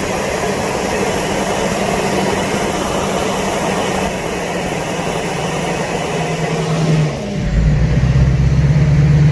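Rebuilt LBZ Duramax 6.6-litre V8 turbo-diesel pickup running on a test drive, with a dense, steady wash of engine and road noise. About seven seconds in, the sound changes sharply to a louder, steady low engine drone.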